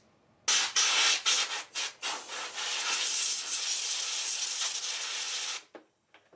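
Compressed air blowing out an ABS brake control module's valve block: several short blasts, then one steady blast of about three and a half seconds that cuts off suddenly.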